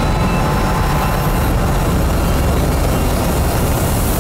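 Rocket in ascent during solid booster separation: a steady, loud roar of engine and rushing air that cuts off abruptly at the end.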